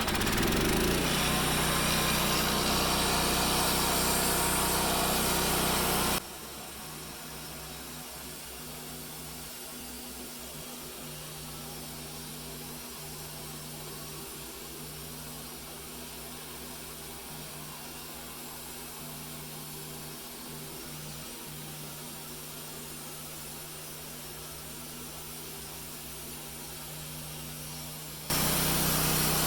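Wood-Mizer LT15START portable band sawmill running through a log, its engine and band blade loud and steady. About six seconds in the sound drops suddenly to a quieter steady engine hum, and it jumps back to full loudness near the end.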